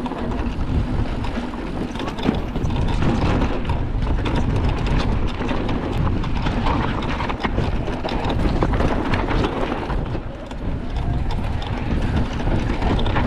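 Mountain bike riding fast down dry dirt singletrack: a steady low rush of wind on the microphone with the tyres on dirt, and many quick rattles and clicks from the bike over the bumps.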